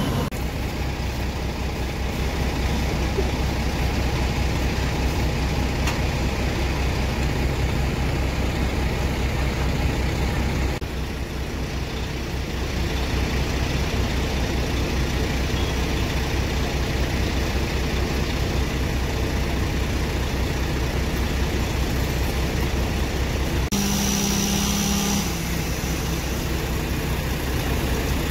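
Fire truck's diesel engine running at a steady idle. Near the end there is a brief hiss with a low tone lasting about a second and a half.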